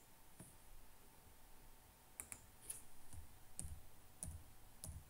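Sharp computer mouse clicks over a quiet room: one just after the start, then about seven more in an irregular run from about two seconds in, as an input bit is toggled in PLC programming software.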